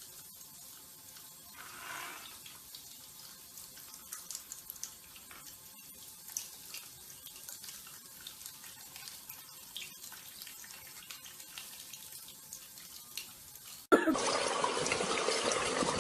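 Faint background noise with a few small ticks, then near the end a sudden steady rush like water running from a tap.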